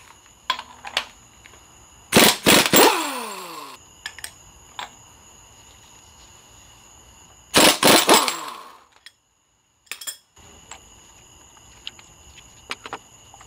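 Pneumatic impact wrench hammering out the cam phaser bolts on a Pentastar 3.6L cylinder head in two bursts of about a second each. The first burst trails off in a falling whine as the tool spins down. Light clicks of handling the tool and parts come between the bursts.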